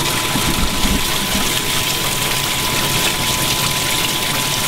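Water streaming from a hose into a 100-gallon live bait tank, driven by a 3/4 horsepower water pump running steadily. The rush of water is even and unbroken, with a thin steady hum above it.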